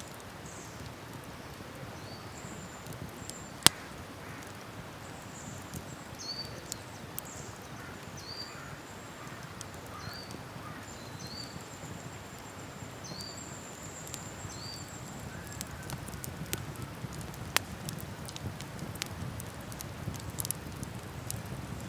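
Wood campfire crackling, with scattered sharp pops, the loudest about four seconds in, over a low steady rush of a river. Short high chirps repeat about once a second through the first part.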